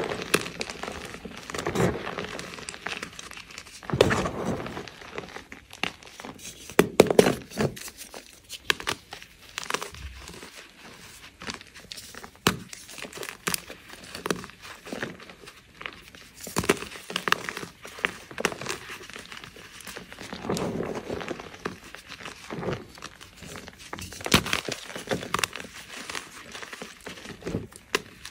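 Hands crushing and crumbling soft blocks of gym chalk in a tub of chalk powder: irregular dry crunches, with softer squeezing crumbles in between.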